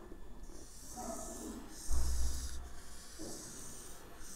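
Scratchy writing strokes of a pen or marker across a writing surface, in two stretches, with a dull low thump about two seconds in.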